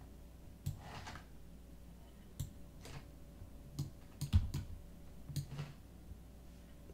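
Irregular, light clicks of a computer mouse and keyboard at a desk, about a dozen, with a small cluster a little after four seconds in, over a faint steady hum.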